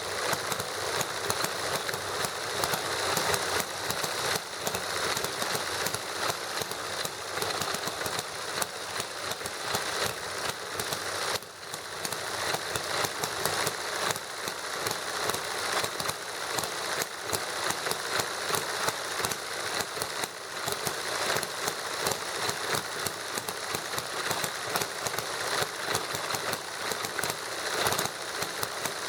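Small model hit-and-miss gasoline engine and a model Stirling engine running together: a fast, steady clatter of small pops and clicks.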